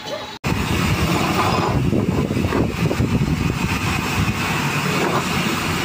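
Workshop machinery running steadily, an even low rumbling mechanical noise that starts abruptly about half a second in after a brief dropout.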